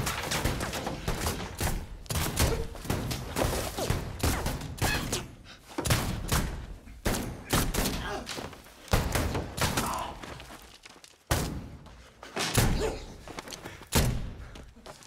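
Gunfight: a long, irregular run of gunshots, each a sharp crack with a short echo, some coming in quick succession.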